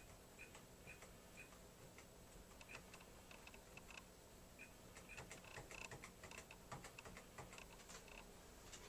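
Faint typing on the StarWriter Pro 5000 word-processor keyboard: light, irregular key clicks that come thicker after about five seconds, with short high beeps among them and a faint steady high whine.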